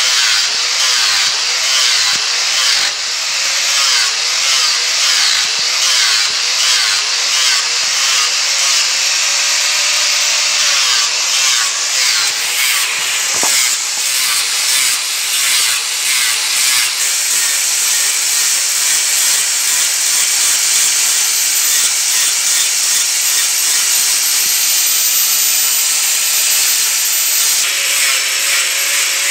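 Angle grinder with an abrasive disc grinding a wooden spoon blank to shape. The motor's pitch dips and recovers with each pass in the first half, then holds steadier.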